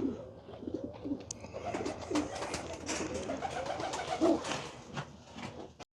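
Domestic pigeons cooing in their loft, low warbling coos again and again, with scattered clicks and scuffs. The sound cuts off suddenly just before the end.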